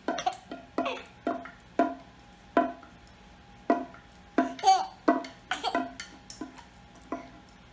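A small djembe-style hand drum struck about a dozen times at an uneven pace with a hard plastic toy wand. Each hit is a sharp tap with a short hollow ring.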